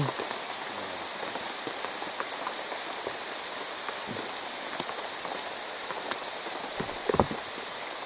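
Steady rain falling, with scattered single drops ticking close by. A couple of soft knocks come about seven seconds in.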